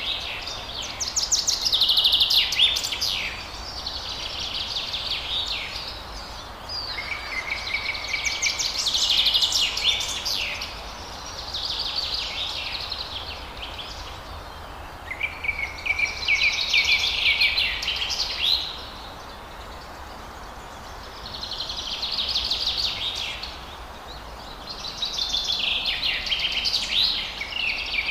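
Forest birds singing: quick, high chattering phrases a second or two long, repeated every few seconds over a steady background hiss.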